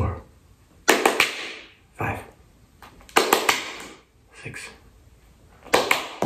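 Hand claps: three times, about every two and a half seconds, two sharp cracks close together, from clapping while a tossed kumquat is in the air and then catching it.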